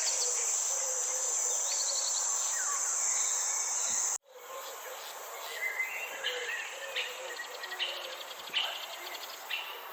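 Garden ambience: a steady high-pitched insect trill, typical of crickets, with scattered bird chirps. The trill cuts off abruptly about four seconds in, and after that birds keep chirping and calling over a low wavering call.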